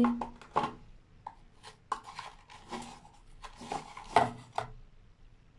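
Light clicks, knocks and scrapes of kitchen utensils and containers being handled, a spoon and spice pots made ready to season a bowl of yogurt. There are several short, separate strikes with quieter scraping between them.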